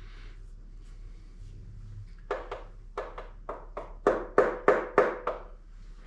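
About a dozen quick taps from a mallet, growing harder in the second half, as a piston is driven down into its bore in a 5.3 LS engine block.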